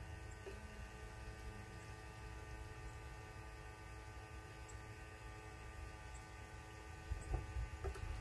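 Battery-powered Harbor Freight liquid transfer pump running steadily with a faint, even motor hum as it pumps gasoline out of a snowmobile fuel tank that is nearly empty. A few low bumps about seven seconds in.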